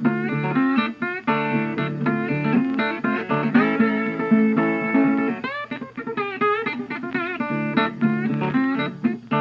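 Background music led by guitar, with plucked notes and some bent, sliding pitches.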